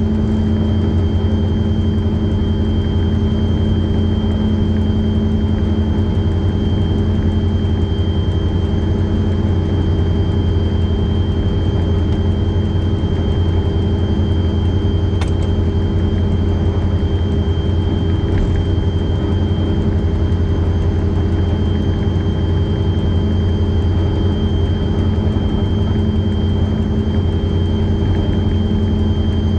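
Diesel locomotive engine of a bank engine running steadily, a constant low drone with a steady high whine above it, and one faint click about halfway through.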